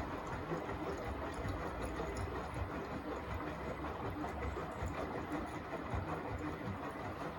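Beko WTK104121A front-loading washing machine running a rinse: the drum turns with the rinse water sloshing inside, over a steady low mechanical hum with uneven soft thuds.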